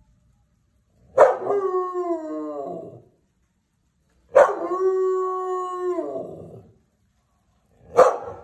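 Belgian Malinois howling three times, set off by a siren. The first howl slides down in pitch, the second holds steady and then drops at its end, and a short third howl starts near the end.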